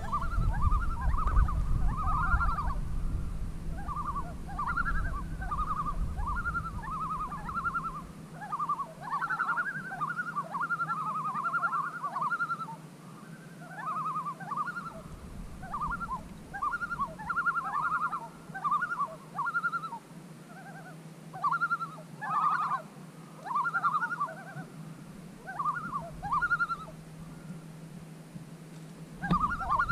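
Wild animal calls across the lake: many short, quavering cries, often sliding down at the end, repeated in clusters throughout.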